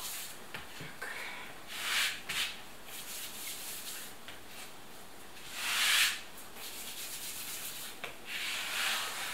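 Hands rubbing and rolling pieces of yeast dough on a floured work surface: soft continuous rubbing with a few louder swishing strokes, the loudest about six seconds in.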